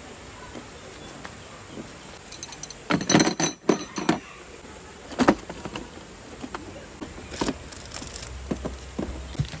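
Small hard objects clinking and knocking as they are handled, with a quick cluster of clinks about three seconds in and a few single knocks after.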